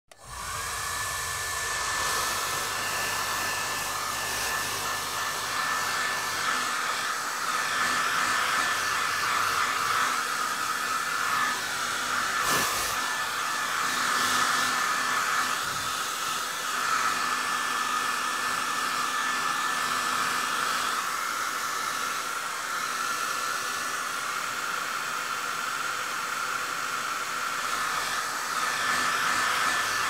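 Hair dryer running steadily: an even rush of air with a steady motor whine, starting abruptly at the very beginning. There is one brief click about twelve seconds in.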